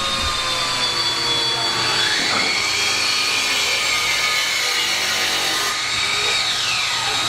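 Power saw running and cutting wood: steady machine noise with a whine that rises and falls in pitch as the blade takes the cut.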